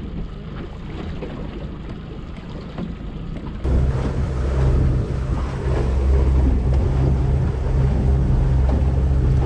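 Small boat under way: wind buffeting the microphone and water rushing past the hull. About four seconds in the sound switches to a louder, steady low drone of the boat's outboard motor under the wind and water noise.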